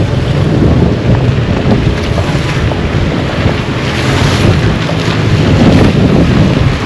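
Wind buffeting the microphone: a loud, low, uneven rushing noise.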